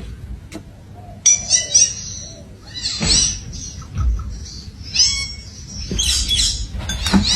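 Birds calling in short bursts of high, squeaky chirps and squawks, starting about a second in and recurring through the rest.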